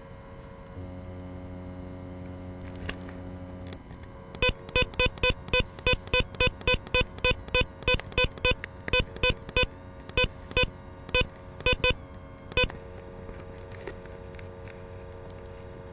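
A run of about two dozen short electronic beeps, all at the same pitch, coming two to three a second at uneven spacing from FPV drone video gear while the picture is lost in static. A low electrical buzz sits under the first few seconds and the last few.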